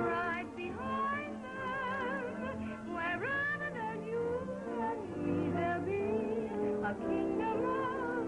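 Old film-soundtrack music: a melody with wide vibrato over sustained chords.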